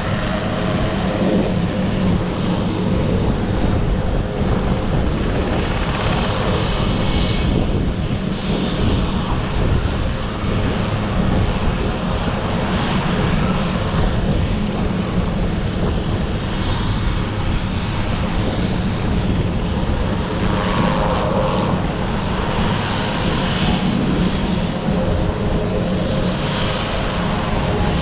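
Sikorsky S-61 helicopter's twin turboshaft engines and rotor running steadily on the ground. Near the end a high whine starts to fall as the engines are shut down.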